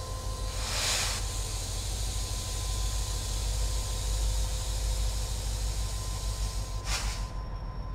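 BNSF diesel-electric locomotives running at low speed with a deep engine rumble and a steady hiss. Two short, loud hisses break through, about a second in and again near the end.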